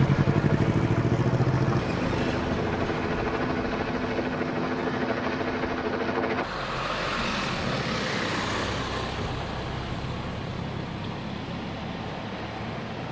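A motor runs with a steady drone until about six seconds in, when it cuts off abruptly. An even outdoor noise, like traffic, takes over.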